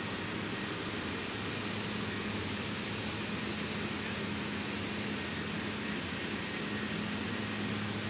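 Steady rushing of a small waterfall, a constant even hiss with no single events, over a faint low hum that comes and goes.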